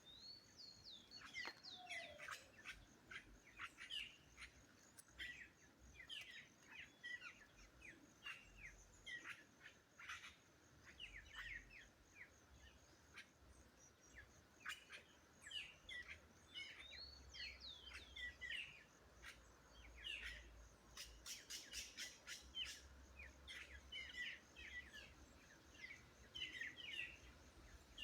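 Birds chirping and calling faintly in many short, quick notes and twittering phrases. A quick run of sharp ticks comes a little past two-thirds of the way in.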